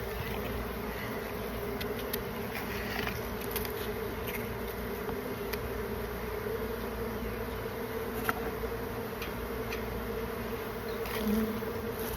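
Many honeybees buzzing together in a steady, even drone, with a few faint ticks.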